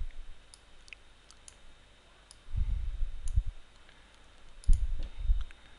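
Computer mouse clicking lightly, with dull low thumps near the microphone in two clusters: about two and a half to three and a half seconds in, and again around five seconds.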